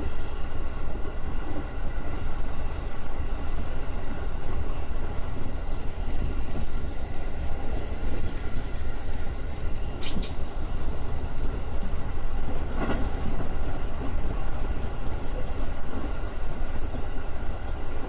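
Electric commuter train running, heard from inside the front of the car: a steady low rumble with a constant hum of several steady tones laid over it, on a train that is giving off an abnormal noise (異音). A single sharp click about ten seconds in.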